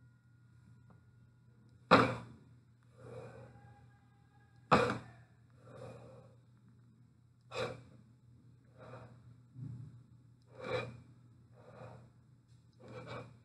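A person breathing close to the microphone: a sharp breath about every three seconds, with a softer breath between each pair, over a low steady hum.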